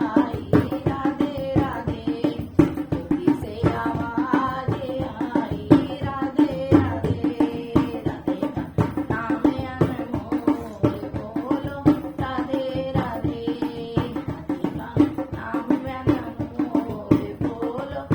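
Hindu devotional bhajan music: tabla playing a quick, steady rhythm under a wavering melodic line.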